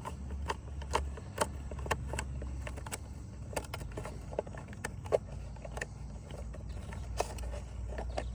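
Small irregular clicks and taps of a plastic fuel filter bowl being handled and unscrewed from an outboard's fuel line, over a steady low rumble.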